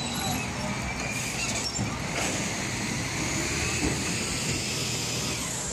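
A motor vehicle running close by: a steady noise with a faint high whine that drifts up and down over it.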